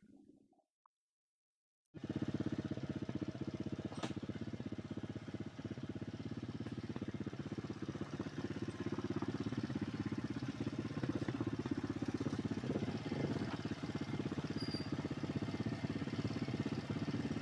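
Motorcycle engine running at a steady, even speed, its firing pulses coming in about two seconds in after a short silence.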